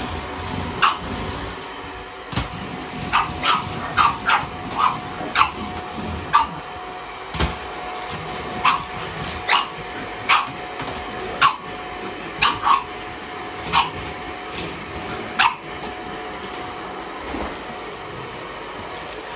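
A pug puppy barking at a vacuum cleaner: a string of short, high barks, one or two a second, that stop about three-quarters of the way through. A steady whine runs underneath and ends soon after the barking.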